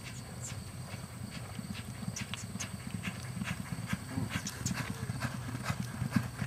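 Hoofbeats of a racehorse galloping on a dirt training track: a rapid, continuous run of low thuds.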